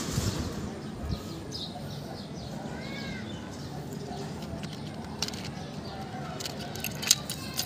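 Outdoor background with a few faint bird chirps, then several sharp clicks near the end, loudest of all, as a clear plastic box holding an amplifier chip is handled.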